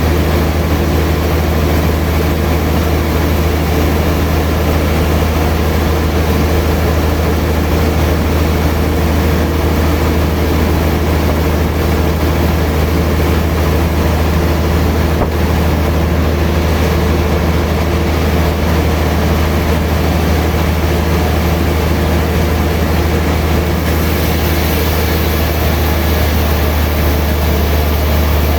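Sawmill machinery running with a loud, steady low hum. A higher hiss joins near the end.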